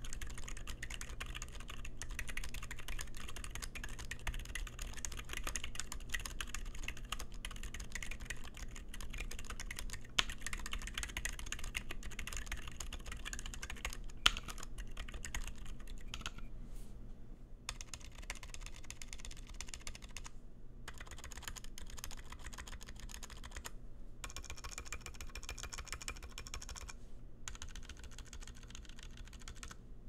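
Fast touch-typing on an SP-111 split southpaw mechanical keyboard fitted with Boba U4 silent tactile switches and GMK keycaps: a dense run of muted keystrokes. Two sharper clacks come around ten and fourteen seconds in. The typing breaks off in short pauses and grows a little quieter in the second half.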